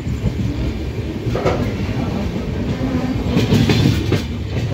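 Passenger train running, heard at an open carriage door: a steady rumble of wheels on the track, with a few clickety-clack clicks over the rail joints, about a second and a half in and again near the end.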